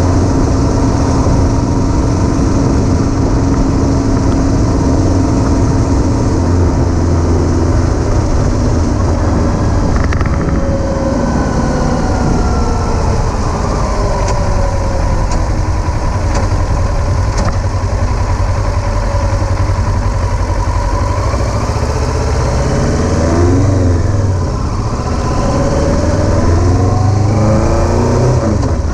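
Kawasaki Versys 650's parallel-twin engine running under way, picked up by a camera mounted on the motorcycle. Its pitch rises and falls with throttle and gear changes, with several quick swings a little after the middle and again near the end.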